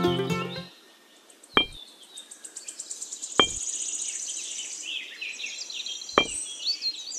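Miniature clay bricks being set down one at a time, three sharp knocks in all, over steady high-pitched chirping of birds or insects. Background music stops within the first second.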